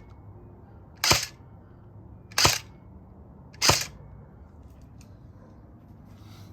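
Crosman Pulse R76 airsoft rifle firing three single shots about 1.3 seconds apart, each a short sharp snap.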